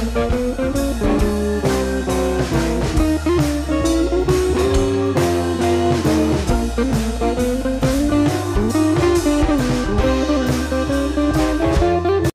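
Background music: a blues-style guitar tune over a steady drum beat.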